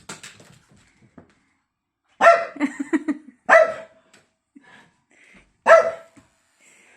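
Pug barking: three separate barks, a second or two apart, with small fainter sounds in between.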